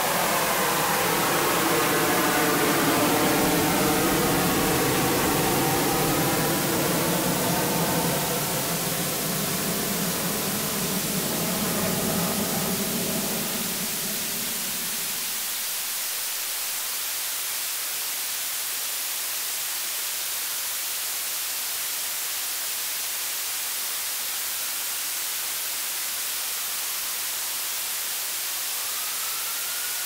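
Radio static hissing steadily over a dead channel after the station has signed off. For about the first half a low droning chord of several sustained tones sounds under the hiss, then fades out, leaving the static alone; right at the end a faint tone glides up and back down.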